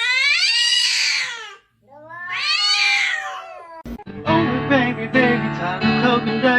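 A cat meowing twice, two long drawn-out meows that rise and then fall in pitch. About four seconds in, music begins.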